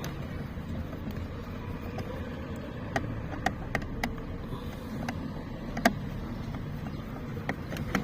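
Scattered light clicks and taps of hand tools and screws on the plastic door trim during removal of a car's door window-switch panel, one sharper knock about three quarters of the way in, over a steady low rumble.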